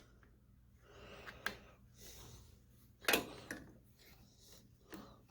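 Faint small handling noises of a nut being threaded by hand onto a battery terminal bolt: a light click about a second and a half in and a short, louder noise about three seconds in.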